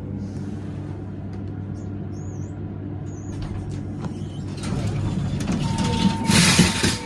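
Hydraulic elevator car (a Schindler HXPress modernization of an Otis) humming steadily as it arrives at the floor. The hum stops about three seconds in, then the car doors slide open with a rising rush of noise, loudest near the end, and a steady electronic tone sounds as a floor button is pressed.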